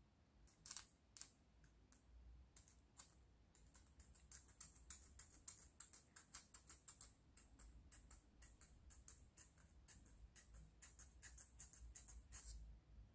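A thin metal hand tool scraping at a tiny 3D-printed plastic puzzle piece in quick light strokes, heard as faint rapid ticks, several a second. Two louder clicks come about a second in, and the quick ticking runs from about four seconds in until shortly before the end.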